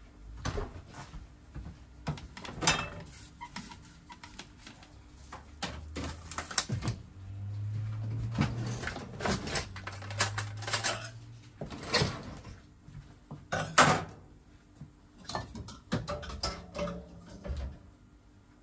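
Kitchen clatter: a string of knocks and clinks from cookware and utensils being handled while cutlets are turned in a frying pan on a gas stove. A low hum runs for a few seconds in the middle.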